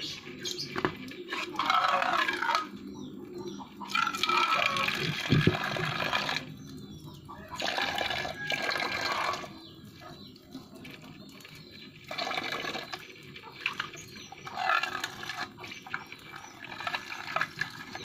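Old toothbrush scrubbing wet algae off tiles, in stop-start bursts of wet brushing with short pauses between.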